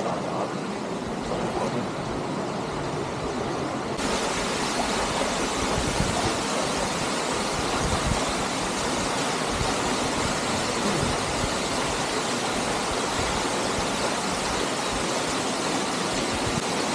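Waterfall and river water rushing steadily, the sound getting fuller and brighter about four seconds in.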